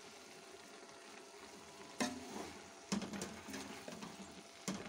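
A spoon stirring methi and meat in a large aluminium cooking pot over a faint sizzle, knocking against the pot three times in the second half, each knock ringing briefly.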